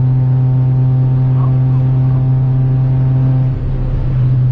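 A Volkswagen car's engine drones steadily from inside the cabin at high highway speed. Near the end the sound turns briefly rougher with a rush of noise as the car draws alongside another car to overtake it.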